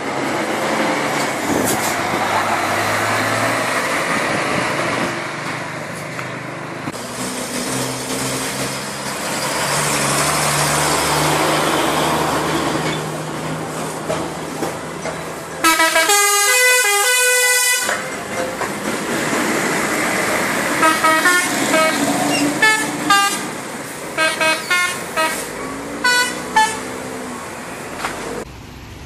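Buses and traffic pass with engine noise, then a bus's telolet horn, a multi-trumpet musical air horn, sounds: one loud blast of about two seconds, then a run of short toots at changing pitches playing the telolet tune.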